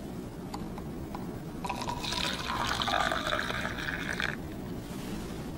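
Coffee poured from a jug into a cup: a splashing stream starting about two seconds in and lasting about two and a half seconds, with a few faint clicks before it.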